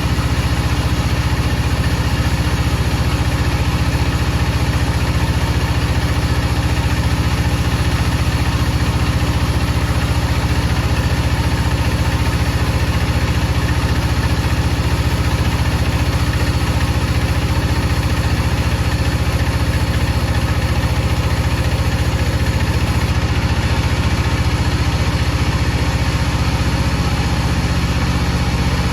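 Woodcutting saw machinery running steadily with a constant low hum that holds the same pitch throughout.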